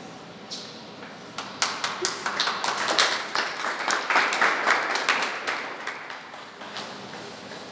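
Hand clapping, a dense run of sharp claps that builds about a second and a half in and thins out near the end.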